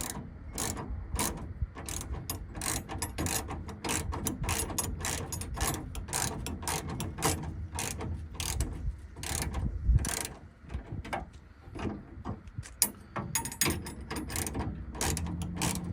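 Ratchet wrench clicking in quick, regular strokes, about four clicks a second, as a bolt is run in on the door panel. The clicking pauses briefly about ten seconds in, around a single low thump.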